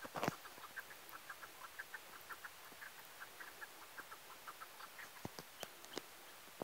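Chukar partridges calling: a long run of short clucking notes, several a second, with a loud knock just after the start.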